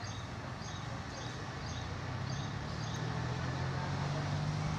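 A motor vehicle's engine hum that grows louder as it draws closer, loudest near the end. Short high chirps repeat about twice a second through the first half.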